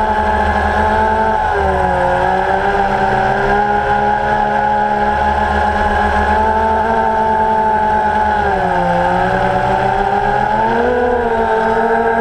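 Multirotor drone's motors and propellers whining steadily, the pitch dipping briefly twice and rising again as the throttle changes.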